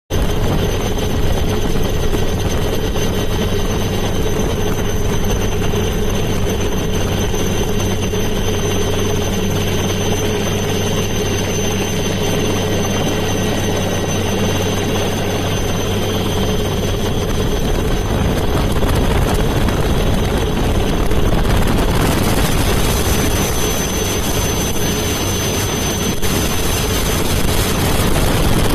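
Helicopter's turbine and rotor noise heard from on board: a steady drone with a thin high whine, growing a little brighter and louder in the last several seconds.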